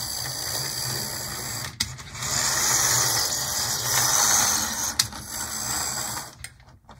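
The motor and gear train of a PlayArt HO-scale model locomotive chassis, shell off, running noisily along the track; the owner puts the noise down to dry gears with a lot of slop. It dips briefly about two seconds in, gives a sharp click about five seconds in, and stops near the end.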